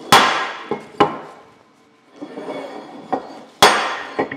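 Tack-welded steel mandrel pieces clanking as they are flipped over and set down on a metal work surface: a few sharp metal clanks, the loudest right at the start, each ringing briefly, with quieter knocks between.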